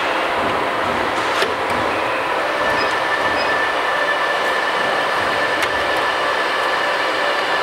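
Steady machinery hum and noise of a workshop, holding several constant tones at an even level, with two sharp clicks, one about a second and a half in and one near six seconds.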